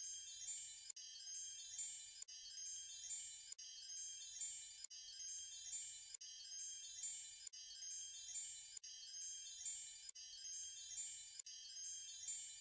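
Background soundtrack of high tinkling chimes: a short sparkling loop that repeats about every 1.3 seconds, with a brief gap between repeats.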